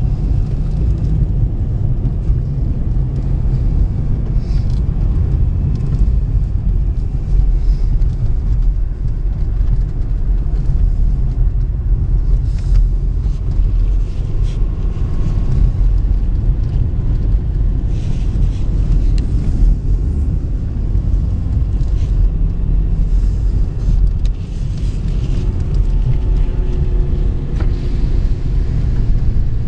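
Car interior noise while driving on a snow-packed road: a steady low rumble of engine and tyres heard from inside the cabin.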